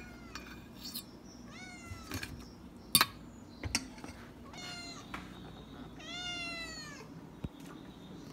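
A domestic cat meows three times, each call falling in pitch, the last about six seconds in and the longest: a hungry cat asking for its food. Between the calls, a fork clinks sharply against a stainless-steel food bowl several times, loudest about three seconds in.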